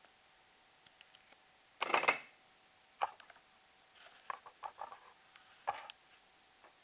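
Scattered light clicks and short rustling bursts of handling on a desk: one rustle about two seconds in, a sharp click a second later, a quick run of small clicks, and another rustle near the end, over a faint steady high tone.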